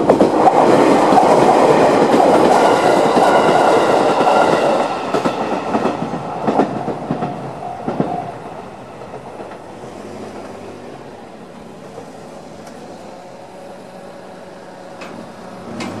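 JR 211 series electric train running through a level crossing, loud at first, then its wheels clattering over the rail joints as it draws away after about five seconds. The crossing's electronic warning bell, the JR standard tone, rings in quick repeated beats until it stops about eight seconds in, leaving only a quiet background.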